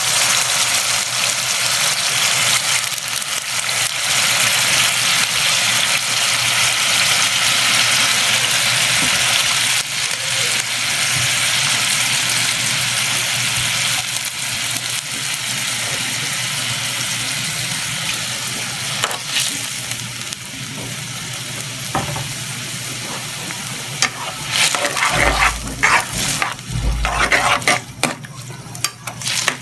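Tuway clams cooking in a wok of bubbling sauce, with a steady sizzle that eases about halfway through. Near the end a spatula stirs them, scraping and knocking against the wok in quick, irregular strokes.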